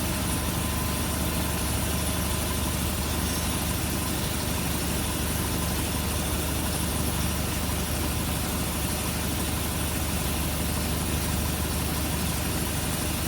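2016 Volkswagen Tiguan's engine idling steadily.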